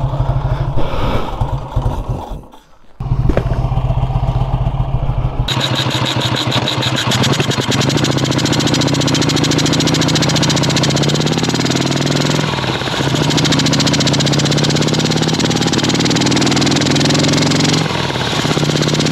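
Vincent Rapide Series C 1000 cc V-twin engine running, with a brief drop-out about three seconds in. After that the motorcycle rides off, the engine note rising and stepping as it goes up through the gears, over steady road and wind noise.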